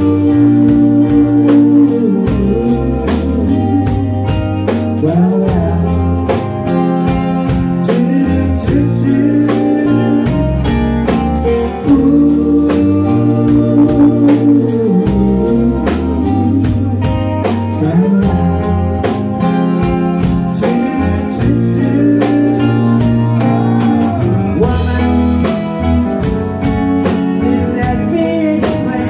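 Live rock band playing a song: electric guitars, bass and drum kit keeping a steady beat, with a lead singer holding long sung notes.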